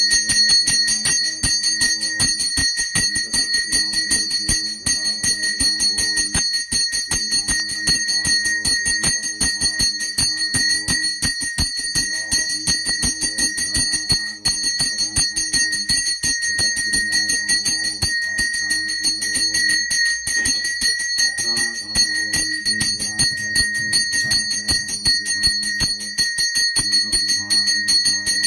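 Temple bell ringing continuously in rapid, even strokes with a steady high ring, over low-pitched music.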